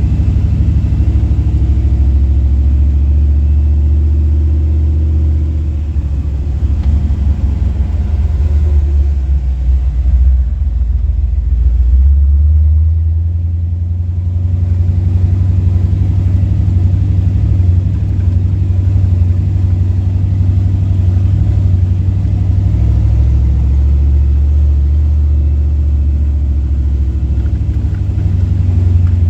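Jeep engine running while driving, a loud, steady low drone that eases briefly and changes note about halfway through.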